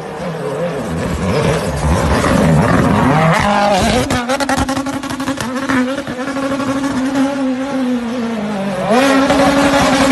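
Ford Fiesta WRC rally car's turbocharged four-cylinder engine at high revs as the car drives through a corner. The pitch climbs, then holds high, with a cluster of sharp cracks about four seconds in. It dips briefly and jumps back up near the end.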